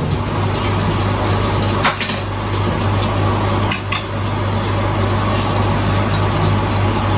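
Light metallic clinks of long steel feeding tweezers against a metal tray and bin, a few scattered clicks over a steady low hum and hiss.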